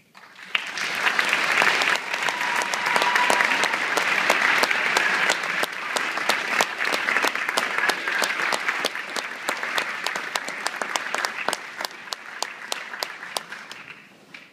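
Concert audience applauding, starting about half a second in and thinning out, dying away near the end.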